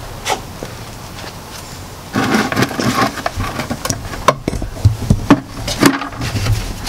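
Scuffing and rustling as a person slides onto a concrete floor and feels along a car's underside, with scattered light knocks from hands and a plastic bucket. The scraping starts about two seconds in.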